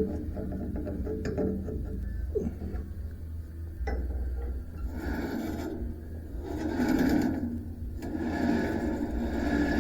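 Scraping and rubbing in three strokes, each about a second long and the last a little longer, after some light clicks and knocks.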